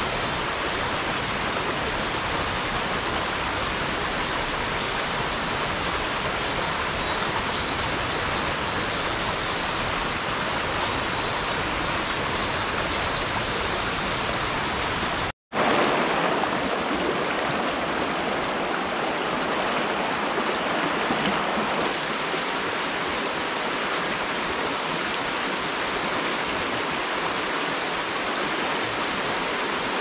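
Mountain stream water rushing steadily over rocks, with faint high chirping at times. The sound cuts out for an instant about halfway through.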